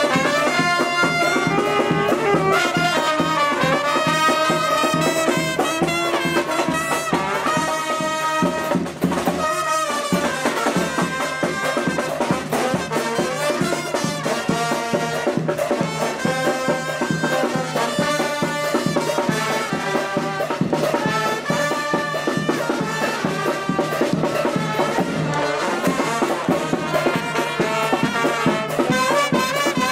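Street brass band playing a lively tune: trumpets, trombone and saxophone over the beat of a bass drum and cymbals.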